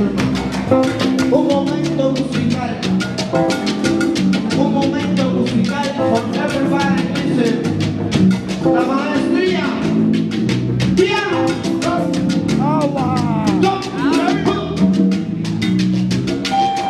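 Live Cuban salsa band playing: a steady driving percussion pattern from congas and timbales over bass and piano, with singers' voices that swoop up and down in the middle.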